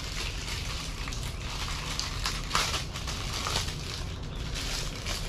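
Irregular rustling and crackling of parts being handled, over a steady low hum, with the loudest crackles about two to three and a half seconds in.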